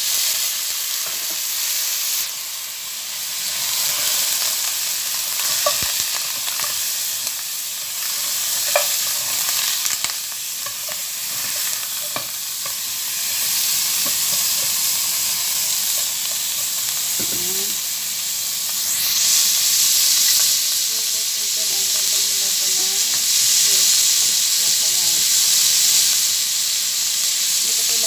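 Beef chunks sizzling in a nonstick pot with ginger and onion, stirred with a spatula, with a steady hiss and scattered knocks and scrapes of the spatula against the pot.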